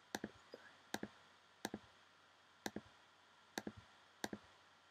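Faint, sharp clicks of a computer mouse button, mostly in quick pairs about a second apart, as scores are picked from drop-down menus.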